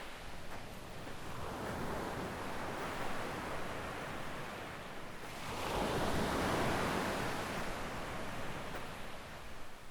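Gentle waves breaking and washing up a sandy beach, rising and falling, with a larger wave surging in about halfway through.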